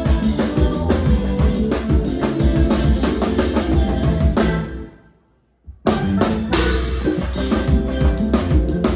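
Live band playing with a full drum kit, kick and snare hits prominent. About halfway through the music fades out to a brief silence, then starts again abruptly.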